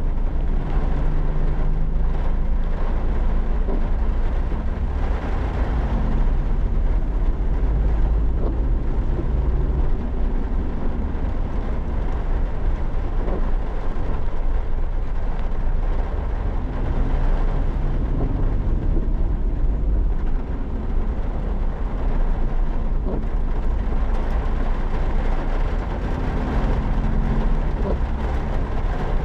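Suzuki Every Wagon kei van driving in heavy rain: a steady low engine and road rumble under the hiss of rain and wet tyres, with the engine's note rising and settling every few seconds.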